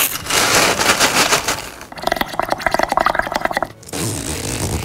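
Foley crackling sounds recreating the fine, velcro-like crackles heard in the lungs in idiopathic pulmonary fibrosis. A dense crackle runs for about two seconds, then a faster, thinner run of clicks, then a softer rasp near the end.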